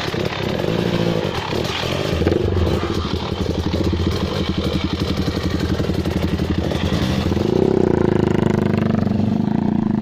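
Dirt bike engine running close by, loud and steady, picking up a little about seven and a half seconds in.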